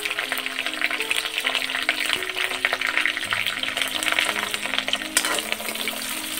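Sliced onions sizzling and crackling in hot oil in a metal kadhai, stirred with a metal ladle.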